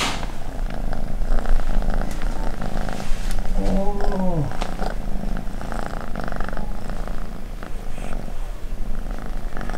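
Close-up of a Siberian cat purring steadily, with a short falling call about four seconds in.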